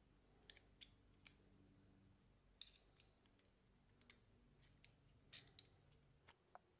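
Faint, irregular clicks of a flat-blade screwdriver turning the worm screw of a metal band clamp, over near silence.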